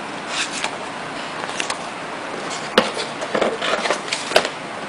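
Paper rustling as the pages of a booklet are flipped, then cardboard boxes being handled, with a few sharp taps, over a steady hiss.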